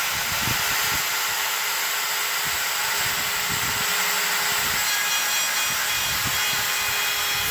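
X-Carve CNC router's spindle running at speed with its bit milling the workpiece: a steady, even hiss with a faint steady tone beneath it and occasional low knocks.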